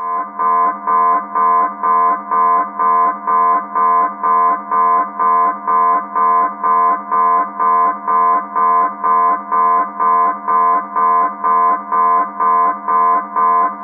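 Military submarine alarm: a loud pitched alarm tone pulsing on and off evenly, about twice a second, starting abruptly.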